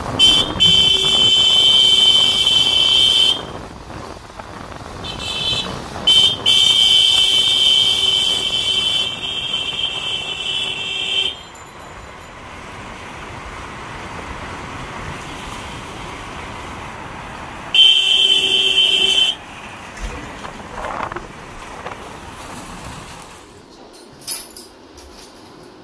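Vehicle horn sounding in four long steady blasts, the longest about five seconds, over steady street traffic noise.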